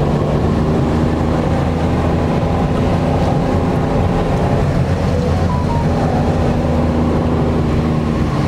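Car engine running steadily with road noise, heard from inside the moving car.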